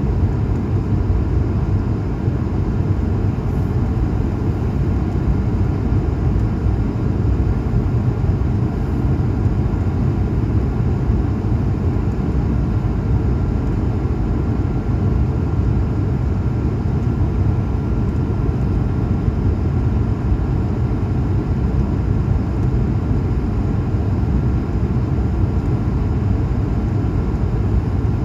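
Jet airliner engines and airflow heard inside the passenger cabin: a loud, steady rush of low noise, with a few faint steady whining tones above it.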